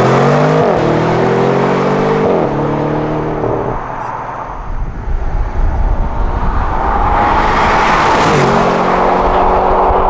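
BMW M550i's twin-turbo V8 accelerating hard past, climbing in pitch through two quick upshifts and fading away after about four seconds. The sound then builds again as the car comes back, with another upshift about eight seconds in.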